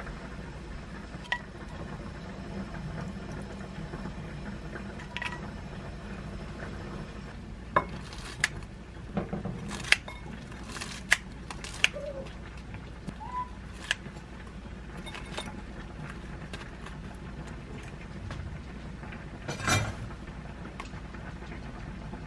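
Metal tongs and kitchen scissors clicking and clinking against a ceramic bowl while cutting crispy chicken cutlets into bite-size pieces: scattered sharp clinks, most of them in the middle, over a steady low hum, with a louder knock near the end.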